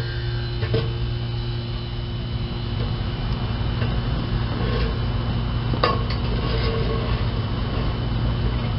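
A steady low electrical hum runs throughout. Over it come a few light metallic clicks and clinks, twice sharper, as the metal fuel pump and sender assembly is worked up and out of the fuel tank.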